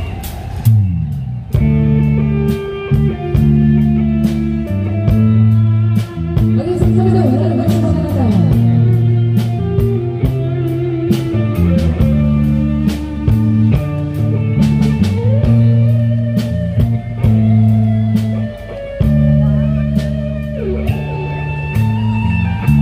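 Live amplified rock band playing: electric guitar lines with bent, gliding notes over a walking electric bass and a drum kit keeping a steady beat.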